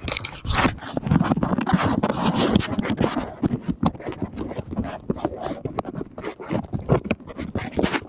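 Phone handling noise while walking on dry sand: clothing and fingers rubbing and scraping over the microphone, with irregular footfalls in the sand. Heaviest rustling in the first few seconds, then uneven scrapes and knocks.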